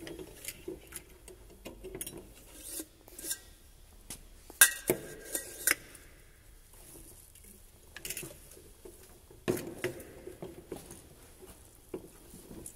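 Metal end cap of a perforated stainless-steel MiG-23 fuel filter element being worked by hand, giving irregular clinks, taps and light scrapes of metal on metal, with a few sharper knocks about halfway through.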